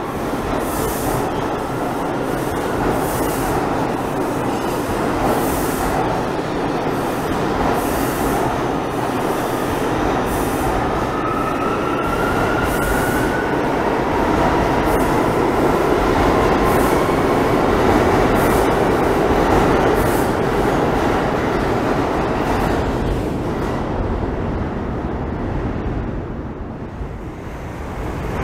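NYC Subway trains, including an R142 train, rolling slowly through an underground station with a dense steel-wheel rumble, irregular clacks over rail joints and faint wheel squeal that rises in pitch about twelve seconds in. The sound thins and drops briefly near the end.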